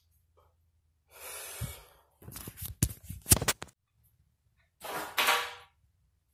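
A person's breathing close to the microphone: a breathy hiss about a second in, a run of sharp clicks and knocks, then a loud, partly voiced breath out around five seconds in.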